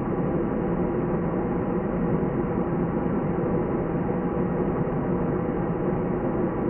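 Airplane cabin ambience: a steady, unchanging rumble and rush of noise inside the cabin, with faint steady hums.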